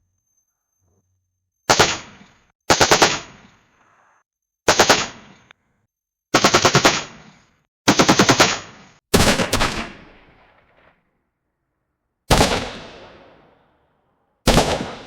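Automatic gunfire in short bursts of about three to six rapid shots, each burst ringing out with an echoing tail and separated by a second or so of silence. From about nine seconds in come a few heavier single shots with longer, slowly fading echoes.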